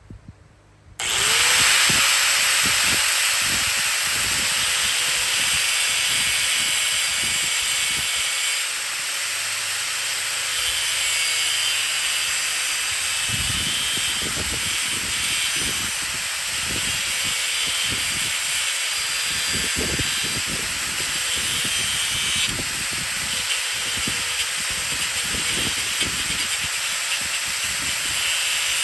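Cutoff wheel starting up about a second in, its whine rising quickly and then holding steady, then grinding a groove into the plate mount with a loud gritty hiss that shifts in level as the wheel bites.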